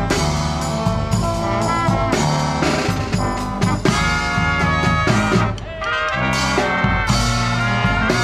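Live brass marching band playing a lively tune: trumpets and trombones with a sousaphone and a bass drum beating under them. The band drops back briefly a little past five seconds in, then comes back in full.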